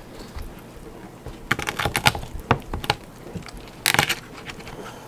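Sharp knife cutting through the bones of a raw chicken: a run of short cracks and clicks, then a louder crunch about four seconds in.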